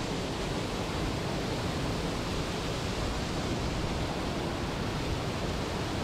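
Waterfall pouring a few metres away, a steady, even rushing of falling water, heard from beside the falling curtain under a rock overhang.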